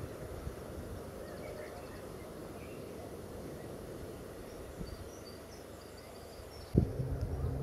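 Outdoor ambience: a steady low rumble with a few faint bird chirps. Near the end a sudden louder patch cuts in, with a low steady hum.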